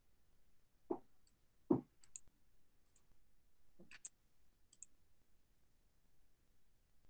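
Faint scattered clicks, like a computer mouse and keys being clicked, with two soft thumps about a second in and just before two seconds.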